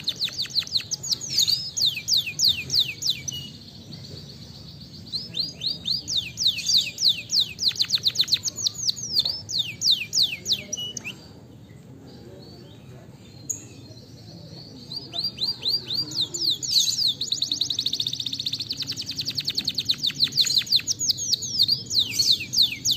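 Domestic canary singing: rapid trills of quick, downward-sweeping notes in three long phrases, with short pauses about three and a half and eleven seconds in.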